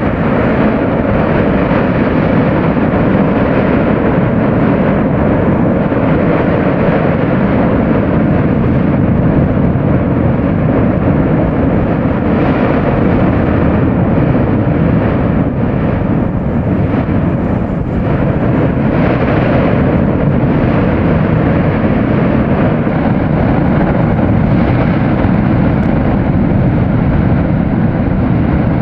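Bromo volcano's crater rumbling during an eruption phase: a loud, steady, deep roar with no pauses.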